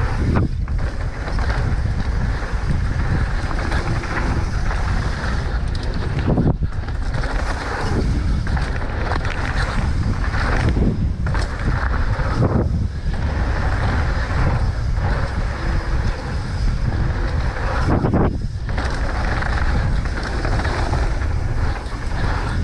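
Wind buffeting the microphone as a loud, steady rush, dipping briefly every few seconds.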